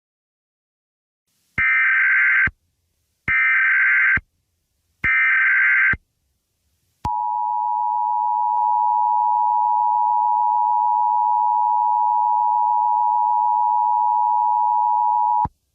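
Emergency Alert System tones: three short bursts of SAME header data, each just under a second long and evenly spaced, then the steady two-tone EAS attention signal held for about eight and a half seconds. It marks the start of a new alert broadcast.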